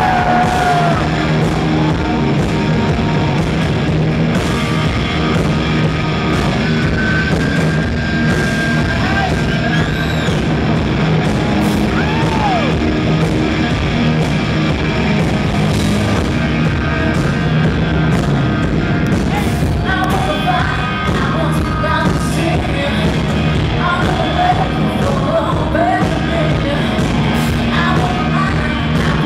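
Live rock band playing loudly through the PA, heard from within the audience: electric guitar with bent notes over drums and bass. Singing comes in past the middle.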